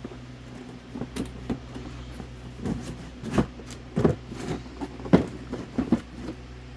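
Cardboard boxes and packs of fireworks being handled and set down: a series of irregular light knocks and rustles, the sharpest about five seconds in, over a steady low hum.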